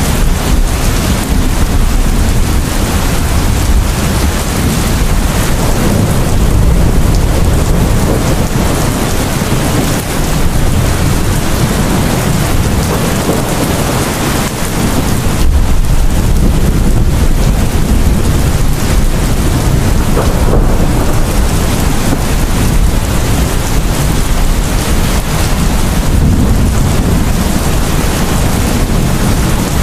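Heavy rain pouring steadily, with a deep, continuous rumble of thunder underneath.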